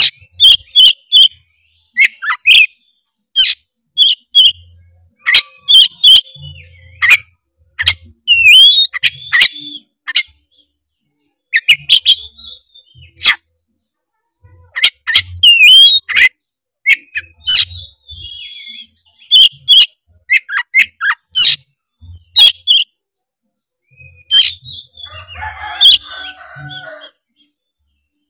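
Oriental magpie-robin (kacer) singing loudly: bursts of sharp whistled notes and quick chirps, broken by short pauses, with a rougher chattering phrase near the end.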